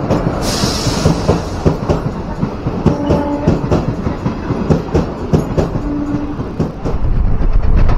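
Indian Railways express passenger coaches rolling past along a station platform as the train arrives, their wheels clattering over the rail joints in an irregular run of clicks over a steady rumble. Two brief tones sound about three and six seconds in.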